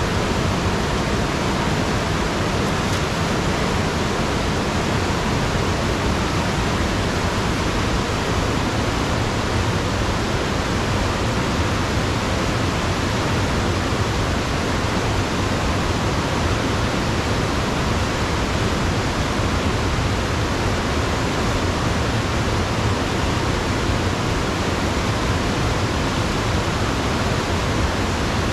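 Rushing river water: a steady, unbroken rush of fast-flowing water.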